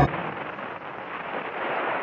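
Steady hiss-like noise that swells slightly about a second and a half in.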